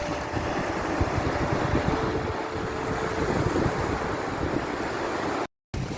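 Sea waves and surf washing in, a steady rushing noise with a low rumble. The sound cuts out completely for a moment near the end.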